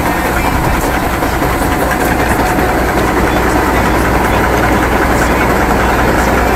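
Claas Dominator 80 combine harvester running steadily while its unloading auger pours grain into a trailer alongside.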